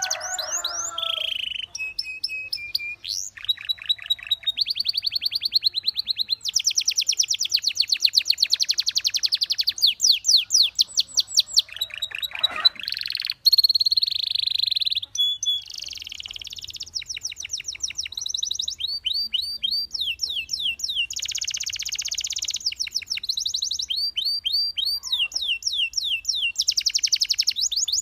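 Domestic canary singing a continuous, fast-changing song of rapid trills and quick runs of repeated high chirps, each phrase lasting a second or two before the next begins.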